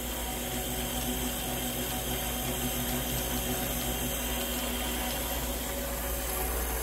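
Benchtop milling machine with a 750 W DC spindle motor running while the cutter takes a side cut in the part, the table fed by hand along the X axis. A steady whirring hiss with a faint even hum.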